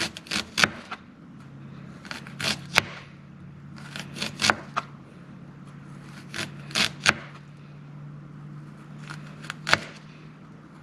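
Chef's knife slicing peeled ginger root on a cutting board: sharp knocks of the blade meeting the board, in clusters of two or three every couple of seconds. A steady low hum sits underneath.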